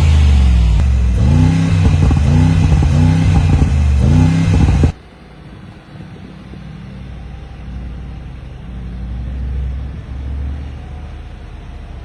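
Mercedes-AMG G63's V8 biturbo engine revved hard in a quick series of throttle blips, each rising and falling in pitch. About five seconds in the sound cuts off abruptly, leaving a much quieter low engine rumble.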